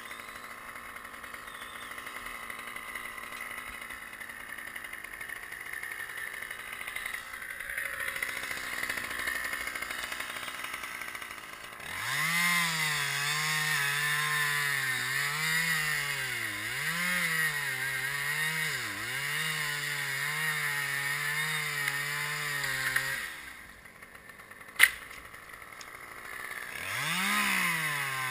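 A two-stroke chainsaw revs up about twelve seconds in and cuts, its pitch dipping and recovering again and again as the chain bogs down in the wood, then stops about eleven seconds later. Before that a steady engine runs in the background. A single sharp click follows the cut, and the saw revs up again near the end.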